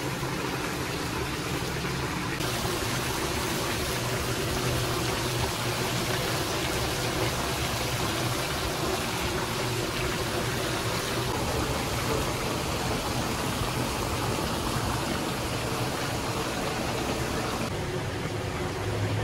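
Steady rushing hiss of water, starting about two seconds in and stopping shortly before the end, over a constant low hum.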